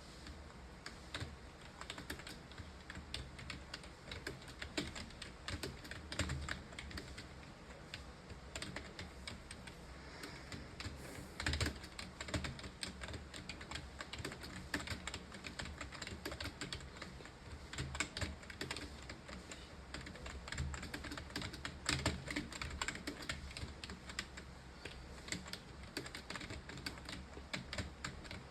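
Fast, continuous touch-typing on a computer keyboard: a dense, steady stream of key clicks, with a few louder strikes now and then.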